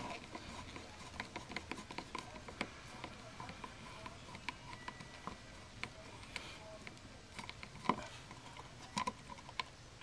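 Flathead screwdriver working the mounting screws of a wall receptacle to take it out of its box: faint, scattered metal clicks and ticks, with a few louder clicks near the end.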